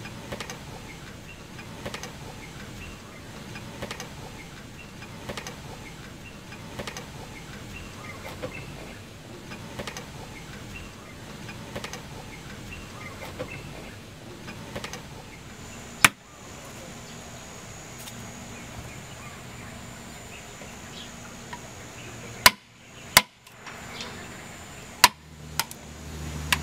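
Wood-carving tools knocking on wood in an open-air workshop: faint, regular taps over a steady background noise, then a few sharp, loud knocks, one past the middle and several close together near the end.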